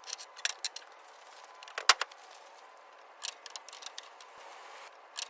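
Scattered short clicks and knocks, with one sharp, louder knock about two seconds in.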